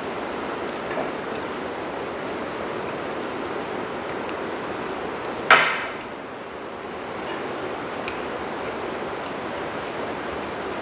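A drinking glass set down on a glass tabletop: one sharp clink with a brief ring about halfway through. A few faint clinks of forks on plates, over a steady hiss of rain.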